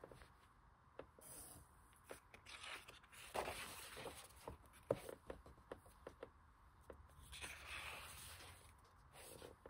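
Faint rustling, scraping and small taps of hands handling the heavy paper pages of a large hardcover art book, with a longer swish near the end.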